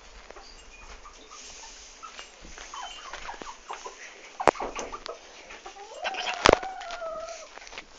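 Chickens clucking with short calls, and one longer drawn-out call about six seconds in. Two sharp knocks stand out, the loudest about six and a half seconds in.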